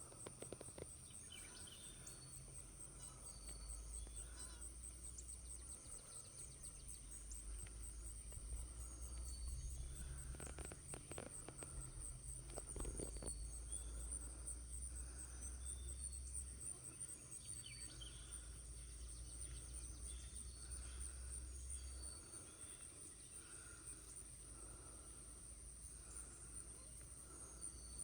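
Insects chirring steadily in a high, rapidly pulsing trill, with a low rumble coming and going underneath and some rustling about ten to thirteen seconds in.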